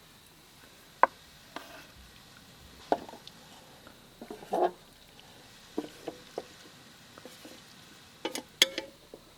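Camp cookware and utensils knocking and clinking: scattered single taps a second or two apart, a short rattle in the middle, and a quick cluster of sharper clinks near the end.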